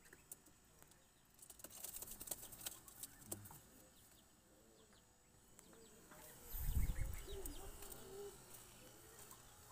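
Domestic pigeons moving and fluttering in a wire coop: faint scattered rustles and clicks, then a low thump about seven seconds in, followed by a few faint low bird calls.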